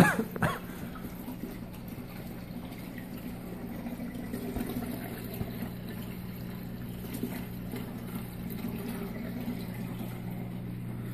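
Water splashing and trickling in a saltwater aquarium's open-top overflow chamber, over a steady low hum from the tank's running equipment. A couple of sharp knocks come right at the start.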